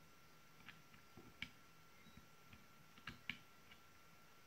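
About half a dozen light, irregular metal clicks and taps as a small screwdriver works at the nozzle of an electric desoldering gun while the nozzle is being changed.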